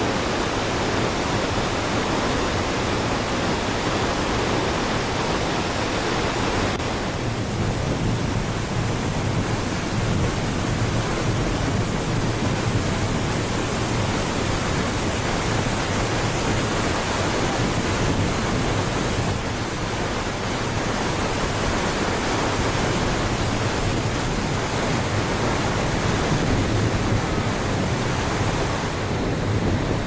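Niagara Falls: the water of the falls pouring down in a steady, dense rush with no breaks.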